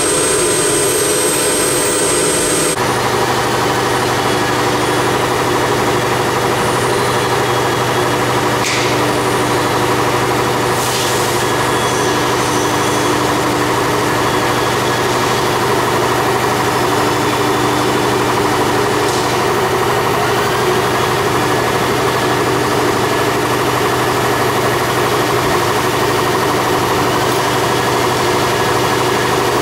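CNC wood router machinery running steadily: a constant motor hum with several steady tones. A high whine drops out about three seconds in, and the hum carries on unchanged after it.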